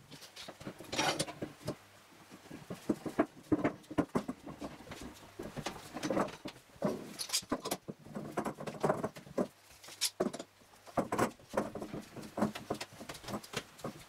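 Steel bar clamps rattling and clicking as their sliding jaws are moved into place and their screw handles turned, clamping together freshly glued plywood leg pieces. Irregular short clicks, scrapes and knocks, some in quick clusters.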